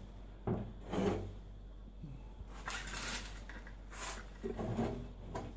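Faint rustling, scrapes and light knocks of hands handling the ignition wires and parts of a dismantled Victa Powertorque engine, over a low steady hum.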